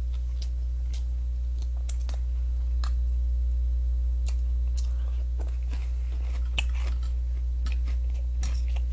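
Steady low electrical hum, with scattered small clicks and crunches of someone eating: chewing and handling food with chopsticks.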